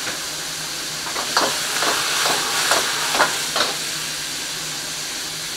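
Chicken stir-frying in a wok over a gas wok burner: a steady sizzling hiss, with about six sharp metal clatters from the ladle working the wok in the middle of the stretch.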